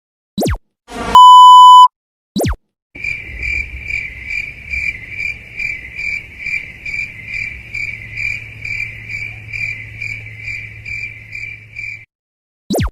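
A string of short meme sound effects: a very fast downward swoop, a loud steady censor beep lasting about a second, another swoop, then a cricket chirping at a few chirps a second for about nine seconds over a low hum (the 'awkward silence' crickets effect), and one more swoop near the end.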